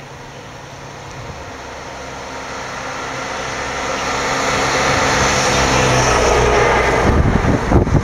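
A motor vehicle's engine grows steadily louder over several seconds as it approaches. Near the end, an uneven low buffeting takes over.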